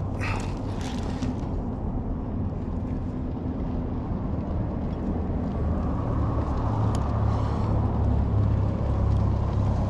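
Steady low rumble of road traffic going by, growing louder in the second half, with a couple of light knocks near the start.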